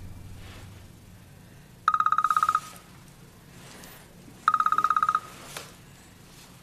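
Mobile phone ringing: two short, fast-trilling electronic rings about two and a half seconds apart, an incoming call.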